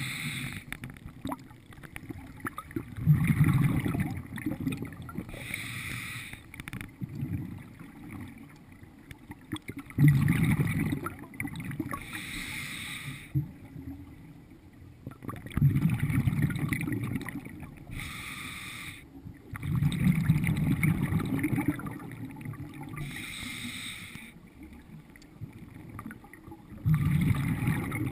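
Scuba diver breathing through a regulator: a hissing inhale, then a louder burst of bubbling exhaust, repeating about every five to seven seconds, heard through a camera's underwater housing.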